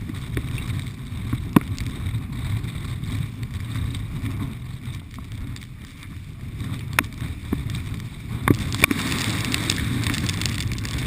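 Strong wind buffeting the microphone in a steady low rumble, with a few scattered sharp ticks and a hiss that grows louder over the last few seconds.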